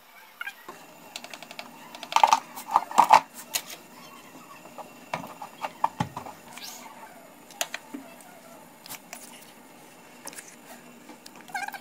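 Scattered clinks, knocks and scrapes of a foil baking tray and serving utensils against metal and a plate. The loudest is a cluster of knocks about two to three seconds in.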